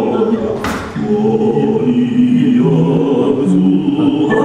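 Choral music: several voices holding long notes and stepping from one pitch to the next, with a brief hiss under a second in.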